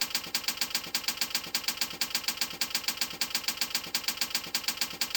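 Rapid, evenly spaced mechanical clicking, about seven clicks a second, keeping a steady rhythm throughout.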